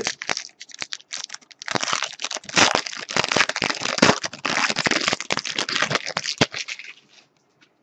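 Foil wrapper of a Bowman baseball card pack being torn open and crinkled by hand. It starts as a few scattered crackles, turns into a dense crackling rustle about two seconds in, and dies away shortly before the end.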